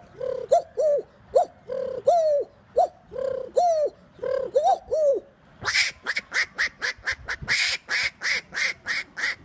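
A man imitating animal calls with his voice: a run of short, bird-like calls rising and falling in pitch, two or three a second, then from about halfway a quicker series of sharper, higher calls about four a second.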